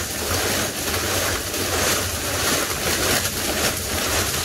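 Coal pouring out of a plastic sack into a solid-fuel boiler's feed hopper, a steady rush of sliding lumps with the sack's plastic rustling.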